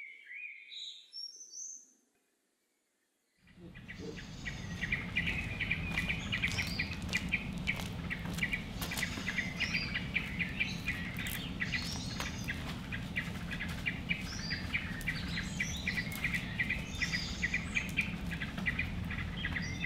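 Small birds chirping continuously over a steady low background rumble, starting about three and a half seconds in after a few brief chirps and a short silence.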